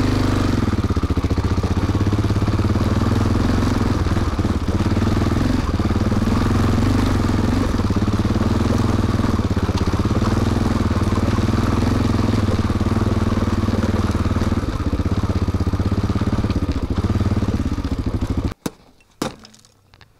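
Honda Dominator NX650's single-cylinder four-stroke engine running as the bike is ridden, its note rising and falling with the throttle. The engine sound stops abruptly near the end, followed by a few short knocks.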